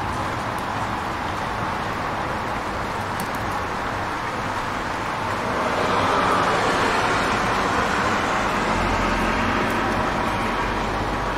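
Rainy city street ambience: steady traffic noise, with a vehicle swishing past on the wet road, swelling about halfway through. A low engine rumble comes in near the end.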